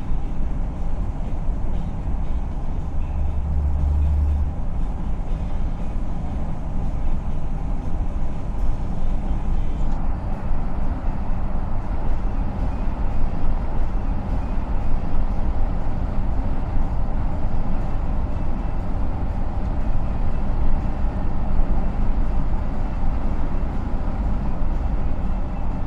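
A car driving on an asphalt road: steady tyre and engine noise, strongest at the low end, with a brief deeper rumble about three seconds in.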